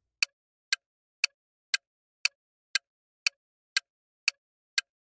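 Countdown timer sound effect: a clock-like ticking, sharp, even ticks about twice a second.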